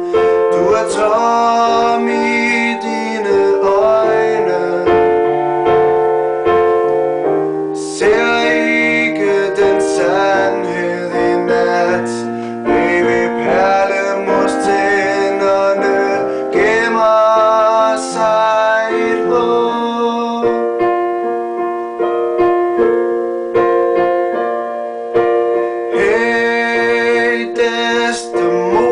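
Music: a piano or keyboard passage playing sustained chords and a melody, with no clear lyrics.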